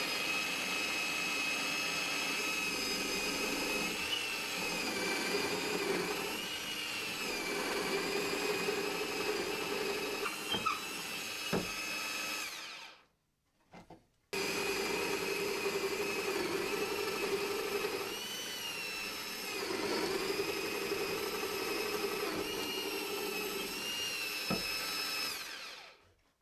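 Bosch bench drill press running steadily with a wood drill bit, boring a row of holes into a wooden strip. The motor's whine is joined by a lower note that comes and goes as the bit cuts into the wood, with a few light knocks. The whine stops for about a second midway, then runs again.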